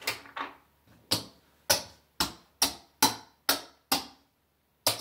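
Casino chips being handled and set down, clicking against each other in a run of about ten sharp clicks roughly half a second apart.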